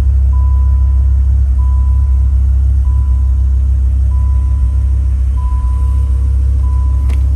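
2001 Dodge Viper GTS ACR's 8.0-litre V10 idling with a steady, deep rumble. Over it a warning chime beeps about once every 1.25 seconds, and a short click comes near the end.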